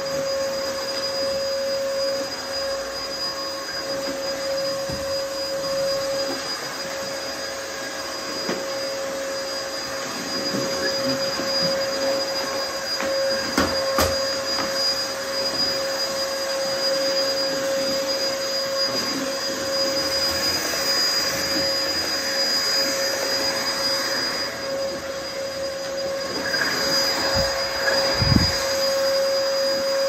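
Vacuum cleaner motor running steadily, a constant whine over a rushing air noise. There is a single sharp knock about halfway through and a couple of low bumps near the end.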